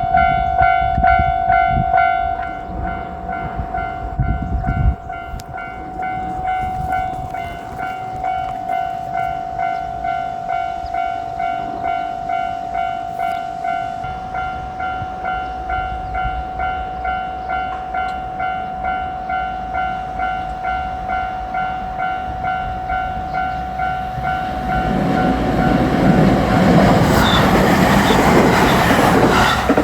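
Japanese level-crossing warning bell ringing its steady, evenly repeated ding. In the last few seconds an electric train runs over the crossing, its running and wheel noise swelling over the bell.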